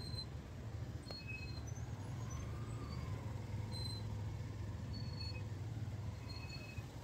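Vehicle engine running with a steady low hum, with short high chirps scattered about once a second over it.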